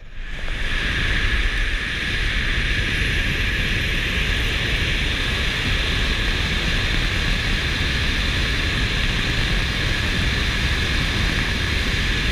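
Wind rushing over a camera on a wingsuit pilot in flight: a steady rush of airflow that builds over the first second or two, then holds level.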